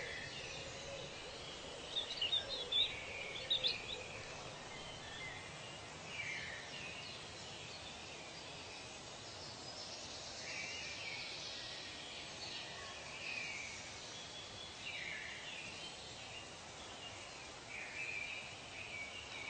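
Forest ambience with birds calling over a steady hiss: a quick cluster of sharp high chirps about two to four seconds in, then shorter single calls every few seconds.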